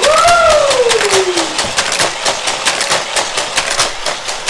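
Hot Wheels Corkscrew Crash track running: its motorized speed boosters whirring as die-cast cars clatter through them and along the plastic track in quick, irregular clicks. At the start a high tone glides down over about a second and a half.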